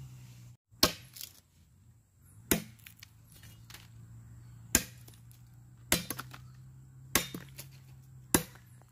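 Machete chopping into green wood, carving a wooden pestle. About seven sharp chops come at irregular intervals, roughly one every second.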